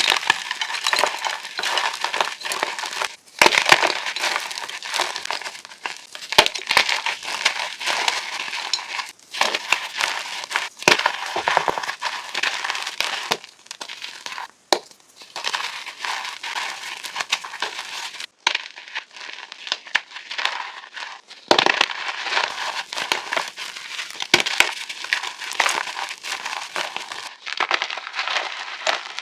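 Reformed chalk blocks being crushed and crumbled, a dense gritty crunching full of small crackles. It comes in a string of short clips with brief breaks between them, about six times.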